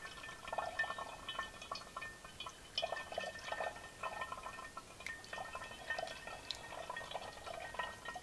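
Water poured into a stainless steel Cuisinart carafe's brew-through lid, then trickling and gurgling as it drains through the lid into the carafe. It drains quickly: the cleaned lid's passages and air vent are flowing freely.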